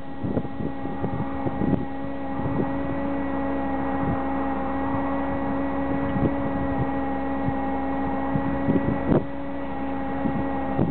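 A steady mechanical hum holding a few fixed pitches, with wind buffeting the microphone in gusts and thumps throughout.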